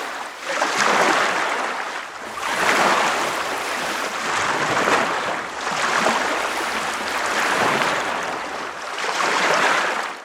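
Ocean surf washing in: a rushing hiss that swells and eases again every two seconds or so.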